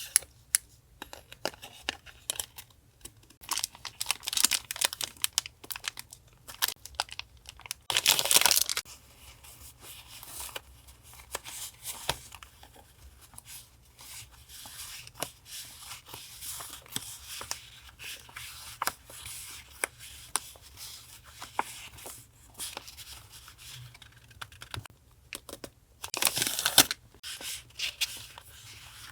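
Paper and packaging being handled close up: rustling, crinkling and light taps and clicks throughout, with two louder tearing rips, one about eight seconds in and one near the end.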